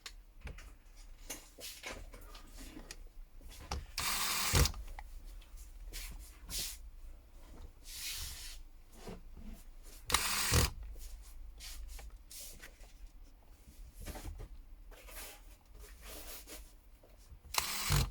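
Small phone parts and hand tools being handled on a bench: soft rubbing and scraping, with three louder half-second scrapes that each end in a knock.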